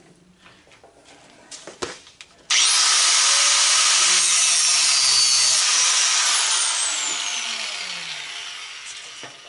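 Small grinder with a cutting disc switched on about two and a half seconds in and cutting through a brass propane-regulator fitting held in a vise, after a few light knocks of handling. Once released, its pitch falls in a whine and it fades as the disc spins down near the end.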